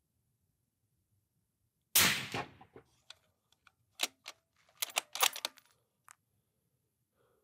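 A single suppressed .308 rifle shot about two seconds in, followed by a run of sharp metallic clicks as the rifle's bolt is cycled to chamber the next round.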